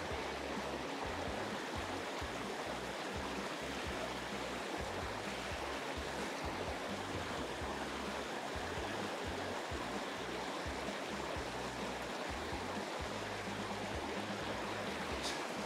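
Small stream running steadily, water spilling through and over a beaver dam of sticks.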